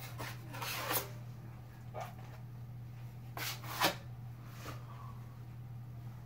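Drywall knife scraping joint compound in several short strokes, the loudest a little before four seconds in, over a steady low hum.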